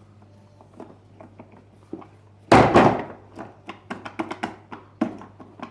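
A vacuum cleaner blowing up: a sudden loud bang about two and a half seconds in, followed by a run of sharp crackling pops as it fails.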